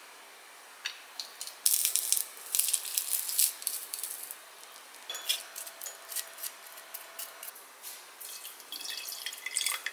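A garlic clove crushed in a metal hand-held garlic press, with a dense run of crackling clicks lasting a couple of seconds. Near the end, lemon juice is poured into a glass jar, with drips and small splashes.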